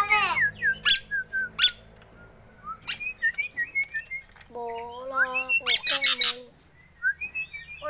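Javan myna calling: harsh squawks and chatter mixed with short whistled glides, and a lower, voice-like call about five seconds in.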